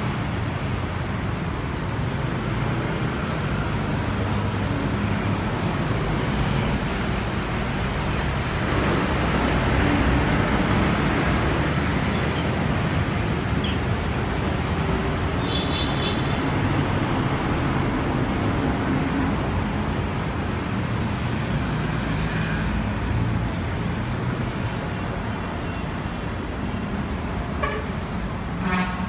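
City street traffic: cars and buses running past in a steady roadway rumble. One vehicle swells louder about nine to eleven seconds in, and there is a short high beep a little later.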